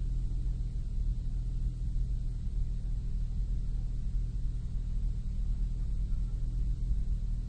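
Nissan Maxima's 3.5-litre VQ V6 idling steadily with a low, slightly uneven hum. The owner describes it as having a slight misfire at idle.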